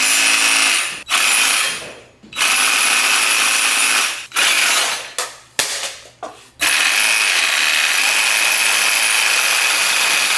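DeWalt cordless reciprocating saw cutting metal conduit. It starts and stops in several short runs over the first six seconds, then runs continuously through the cut.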